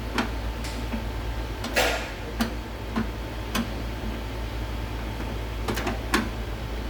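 A series of short clicks and knocks, about eight in all, with a brief rattle a little under two seconds in, over a steady low hum.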